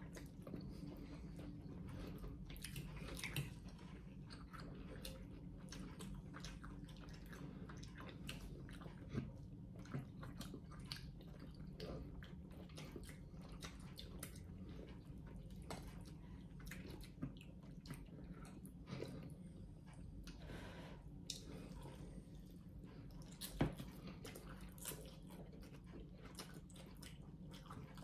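Two people slurping and chewing pho noodles, with many short, sharp wet clicks scattered throughout.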